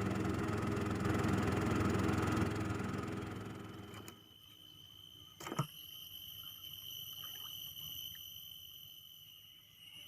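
A louder steady sound with a low hum fades out about four seconds in, leaving steady high-pitched insect buzzing of crickets or cicadas, with a single sharp knock midway.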